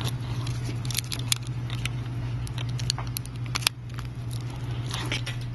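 Scattered small clicks and ticks of flex-cable connectors being pressed onto a Samsung Galaxy S3 logic board and the phone parts being handled, most of them in the middle of the stretch, over a steady low hum.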